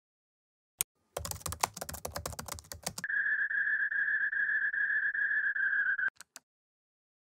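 A click, then a quick run of computer keyboard typing for about two seconds, followed by a steady high-pitched tone held for about three seconds that stops just before two more clicks.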